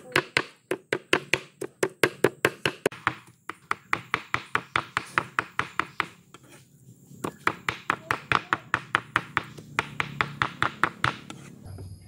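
A cleaver rapidly chopping pork fat and meat on a round chopping board, mincing it: a steady run of sharp knocks, about four or five a second, with two short breaks, stopping near the end.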